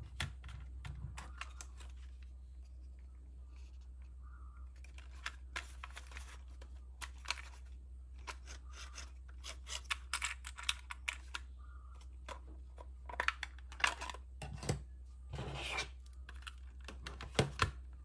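Hard plastic toy body being handled and turned over: irregular runs of clicks, taps and scrapes of plastic against plastic and fingers, with a couple of small plug-and-wire rattles near the end.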